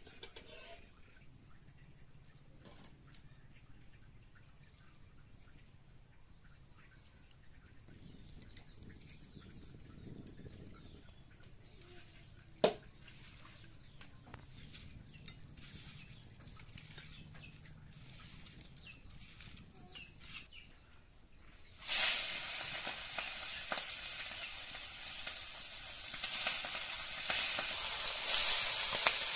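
Small river fish frying in hot oil in an iron karahi: a loud, steady sizzle that starts suddenly about three-quarters of the way through, after a quiet stretch with a few faint clicks.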